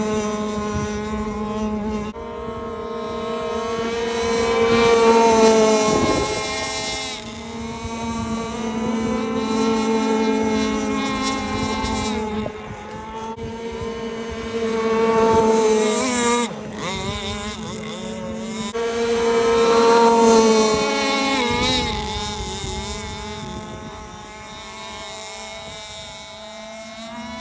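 Small two-stroke gasoline engines of RC race boats running flat out, a high buzzing whine. It swells louder and then drops in pitch each time a boat passes, three times over, and fades near the end.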